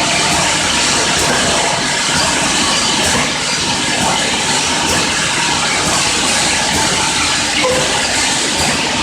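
Four-nozzle piston-pump filling and capping machine running with a steady, dense mechanical noise.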